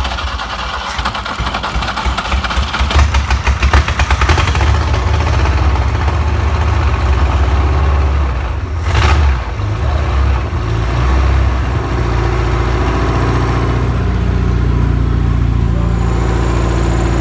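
A freshly rebuilt BMW M10 inline four-cylinder engine of a 1971 BMW 2002 running on its first start, with the throttle worked by hand at the carburettor linkage. Its revs rise and fall unevenly in the first seconds, with a brief sharp surge about nine seconds in, then it settles into a steady idle.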